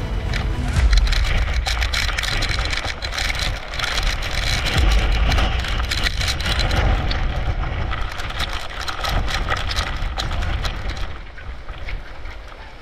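Hurricane wind and driving rain on an open microphone: a heavy, gusting low rumble of wind with the hiss and crackle of rain, easing somewhat near the end.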